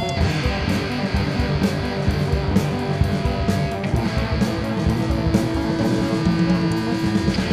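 Solo electric bass playing a fast run of plucked notes with sharp string clicks. About halfway through, one higher note is held for a few seconds.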